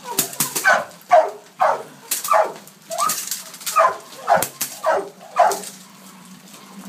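Three-month-old Belgian Malinois puppy barking, about ten short barks in quick succession, each dropping in pitch; it stops about a second before the end.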